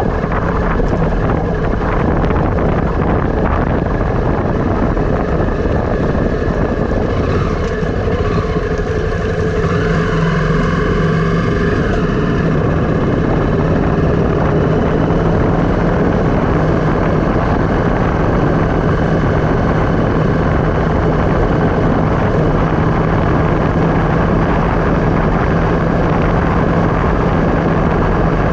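Wind rushing over the action camera's microphone and tyre rumble while riding downhill, with a steady low hum. A tone bends up and down briefly about eight to twelve seconds in.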